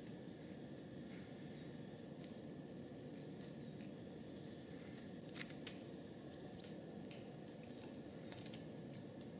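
Great spotted woodpecker pecking at pine bark while foraging: irregular single taps rather than a drumming roll, the loudest pair a little past the middle. A small songbird calls in the background with short descending high notes, over a steady low background rumble.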